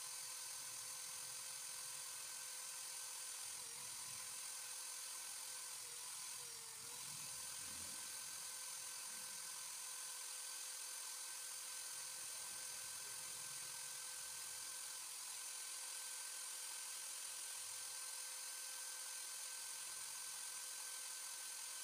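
Electric drill running steadily at speed, spinning a piece of sandal foam that is being sanded into a fishing float against sandpaper on a PVC pipe: a steady high motor whine with a hiss of abrasion, dipping slightly about six and a half seconds in.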